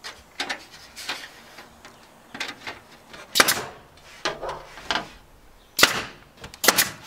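A staple gun firing staples through a camper's aluminum skin into its wooden frame: a series of sharp shots, about ten in all, the loudest in the second half. Lighter knocks and rattles come from the thin aluminum sheet being pressed against the frame.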